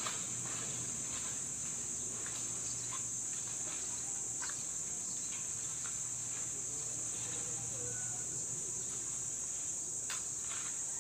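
A steady, high-pitched insect drone, as of cicadas or crickets, with a few scattered light cracks and rustles as cut branches are handled.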